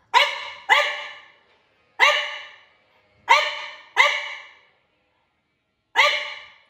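French bulldog barking, six loud single barks spaced unevenly, each trailing off briefly. It is barking at a switched-off upright vacuum cleaner, set off by another vacuum running elsewhere in the house.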